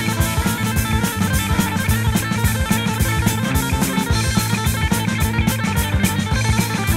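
Instrumental hard rock passage: a drum kit keeps up busy, driving drumming under electric guitar, with no vocals.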